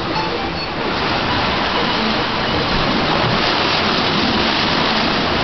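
Water rushing and splashing into a rock-lined channel, churning into white foam, as a loud steady rushing noise.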